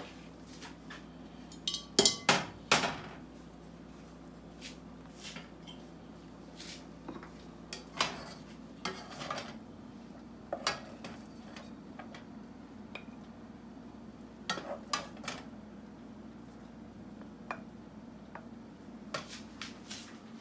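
A spoon clinking and scraping against a saucepan and a plate as cooked rice is served out, in scattered short bursts, loudest about two seconds in. A steady low hum runs underneath.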